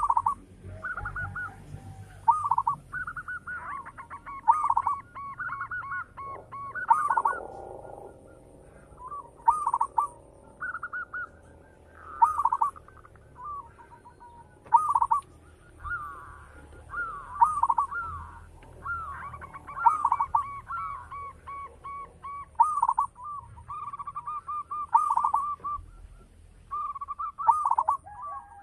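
Zebra dove (perkutut) cooing: short rolling, burbling coo phrases, one after another about every second, with faint high-pitched chirps above them.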